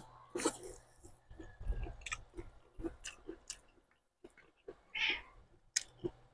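Close-miked wet chewing and lip smacking of a person eating a mouthful of fish and rice, with quick clicky smacks throughout and a louder wet mouth sound about five seconds in.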